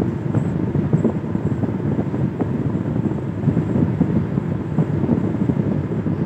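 Steady low rumble of road and engine noise inside a moving car's cabin, its tyres running on a wet road.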